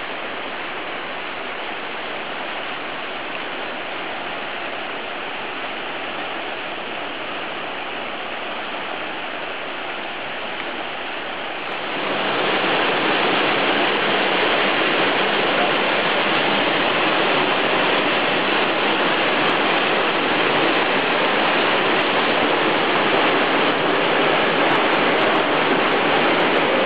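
Gore Creek, a mountain creek, rushing over rocks in a steady noise of white water that grows louder about twelve seconds in.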